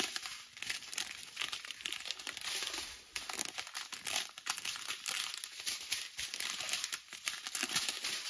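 Thin plastic zip bags of diamond-painting drills crinkling continuously as a strip of them is handled and turned in the hands.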